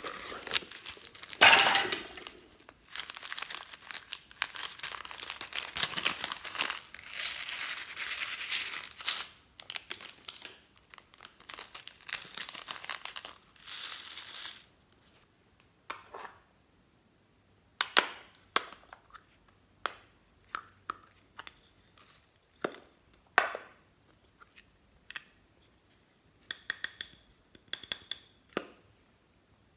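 Plastic packets crinkling and rustling as glitter and beads are poured from them. About halfway through this gives way to separate sharp clicks and taps of small plastic containers being handled and opened.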